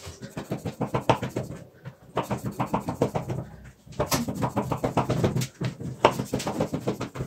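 A kitchen knife cutting straight lines through the stacked layers of unbaked baklava in a round metal tray, with rapid scraping strokes. It comes in four bursts, one for each cut, with short pauses between.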